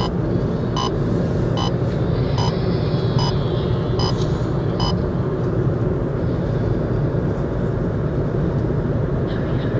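Steady road and engine noise heard from inside a moving car. For the first five seconds a short, regular ticking repeats about every 0.8 seconds, then stops.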